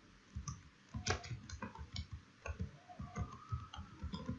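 Computer keyboard typing: a quick, irregular run of key clicks.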